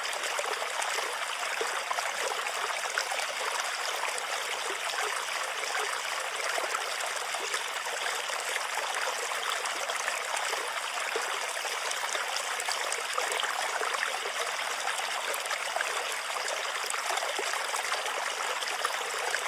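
Running water of a stream, splashing and trickling steadily without a break.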